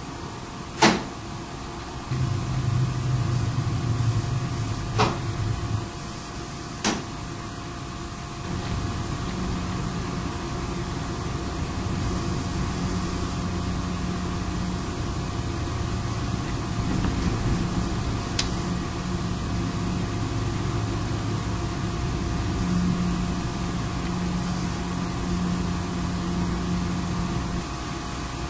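Four sharp knocks or clicks, the loudest about a second in and the last well past the middle, over a steady low mechanical hum and a faint thin whine.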